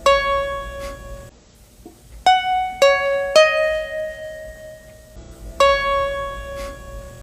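A short musical sting of plucked-string notes: one note that rings out, then about two seconds in three quick notes roughly half a second apart, then the first note again near the end, each sounding sharply and fading.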